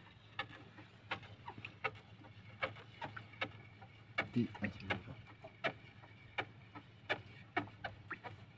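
Scattered light knocks and clicks from a fishing handline being pulled in over the wooden side of an outrigger boat, with a faint steady low hum underneath.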